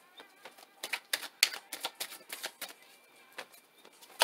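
Deck of tarot cards being shuffled by hand: a run of quick, crisp card clicks lasting about two seconds, a short pause, then another sharp click at the end.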